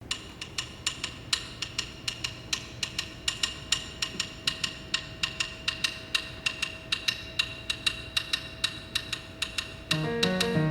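Sharp percussive clicks, several a second in an uneven rhythm, each ringing briefly, over a faint steady tone. Near the end, plucked-string instrumental music comes in.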